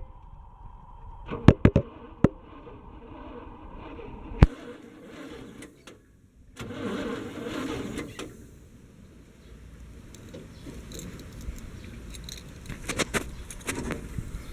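Keys jangling and light clicks, with a short rushing noise about seven seconds in.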